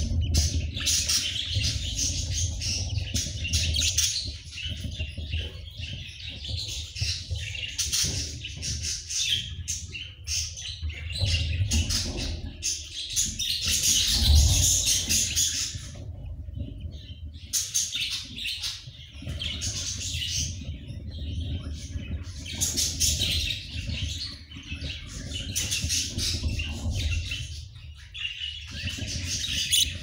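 Budgerigars chirping in a near-continuous high chatter, broken by a few short pauses, over a low rumble.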